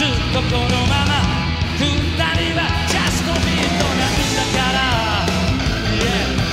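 Live rock band playing an instrumental passage: drums and bass with a lead electric guitar bending and wavering notes over them.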